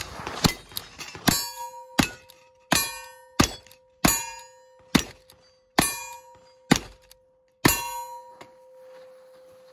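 Lever-action rifle firing black-powder rounds in quick succession, about ten shots less than a second apart, with the steel targets ringing as they are hit. After the last shot a steel plate keeps ringing and slowly fades.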